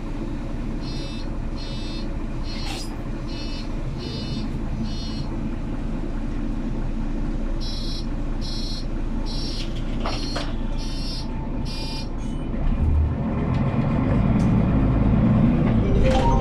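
Mercedes-Benz O530GL Capacity articulated bus, heard from inside: the engine runs steadily at a stop while a high electronic door warning beeper sounds in two runs of about six beeps, a little under a second apart. About 13 seconds in the engine note rises and grows louder as the bus pulls away.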